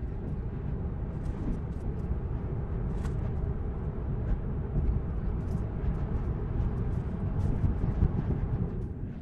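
Tyre and road noise heard inside a Tesla electric car's cabin, a steady low rumble that grows slightly louder as the car speeds up from about 20 to 50 mph.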